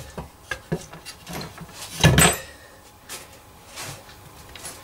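Pieces of wood being handled and set down on a workbench: a few light taps and knocks, with one louder wooden knock about two seconds in.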